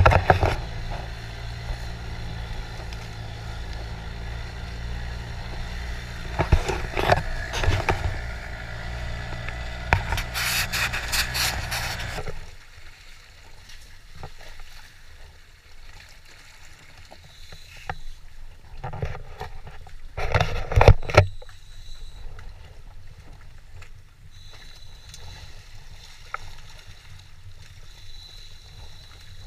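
Small dinghy motoring fast over open sea: a steady low engine hum under rushing water and spray. About twelve seconds in it cuts off abruptly to a much quieter sea and wind background, broken by a few short rushes of noise.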